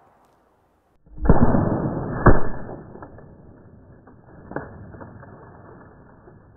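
Air Bolt arrow with a Ramcat broadhead striking a cow leg bone and burying in a foam block target, sounding muffled: a sudden crack about a second in, a sharper smack about a second later, and a fainter knock near the middle, with rustling between that dies away.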